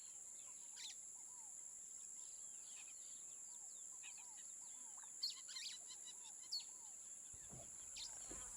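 Quiet nature ambience: several birds chirping in short, repeated calls over a steady high-pitched drone.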